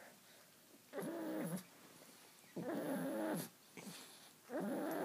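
A pet dog making its odd drawn-out vocal noise three times, each call lasting under a second and wavering in pitch, with short pauses between.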